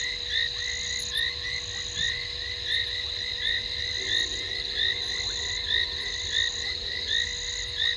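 Chorus of frogs calling at a waterhole at night: many short, rising chirps repeating evenly, about two a second, with a higher short note recurring about once a second.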